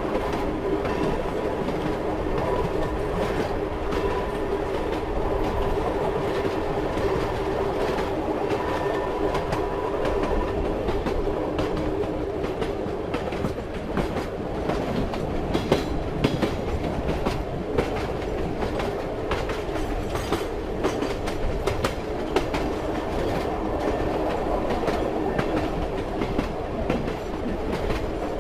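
Train wheels clacking over rail joints above the steady rumble of a moving railway carriage, with irregular clicks scattered through.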